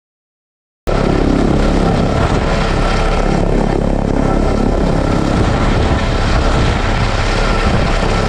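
Helicopter engine and rotor running steadily, a loud, even rumble with a faint steady whine on top, starting abruptly about a second in and cutting off sharply at the end.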